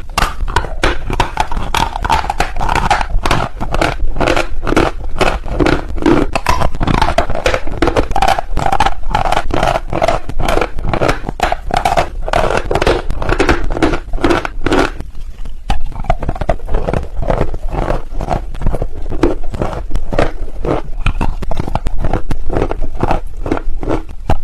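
Dry chalk being bitten and chewed: a dense run of crisp crunches and crackles, with a brief lull about fifteen seconds in.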